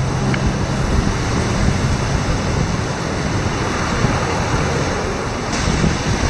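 Steady rush of wind on the microphone mixed with small sea waves washing onto a sandy shore.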